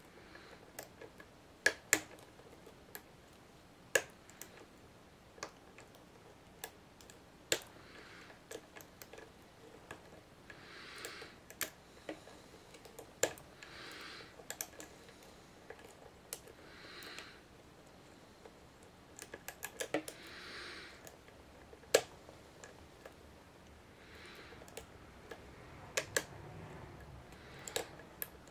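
Lock pick working the pins inside a Master Lock 570 padlock's keyway under tension from a tension wrench: scattered sharp clicks with several short scraping rasps.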